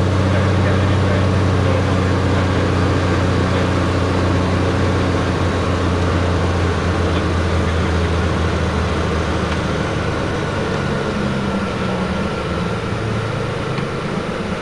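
Light aircraft's engine and propeller droning steadily, heard inside the cockpit, with a slight change in tone about ten seconds in.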